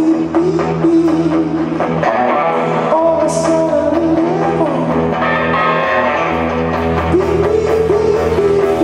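Live rock band playing, with an electric guitar line whose notes bend and glide over a steady bass part.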